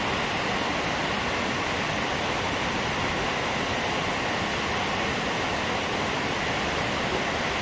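Dam spillway release: water spilling over the dam crest in thin curtains and falling into the pool below, a steady, unbroken rush of falling water.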